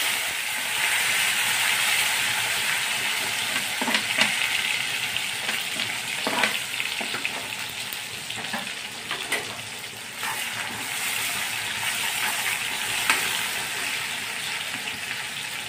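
Chopped tomatoes sizzling as they hit hot oil in a metal kadhai, on top of a tempering of mustard seeds, cumin and curry leaves. A loud, even hiss sets in suddenly and slowly eases, with scattered clicks and knocks from the seeds and from a steel ladle stirring.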